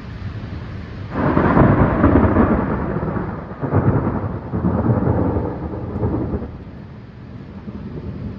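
Thunder: a loud rolling peal breaks about a second in, then a second peal rolls in a few seconds later and dies away to a low rumble.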